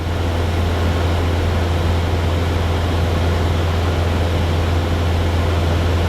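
Cessna 172's piston engine and propeller droning steadily in cruise flight, heard inside the cockpit as an even low hum with a rushing noise.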